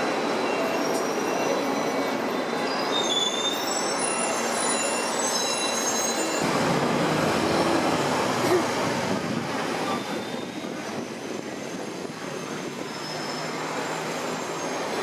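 Hong Kong double-decker electric tram running along its street tracks, heard from on board: a steady rolling rattle with short high wheel squeals in the first few seconds. A deeper rumble comes in about six seconds in, and the noise eases a little near the end.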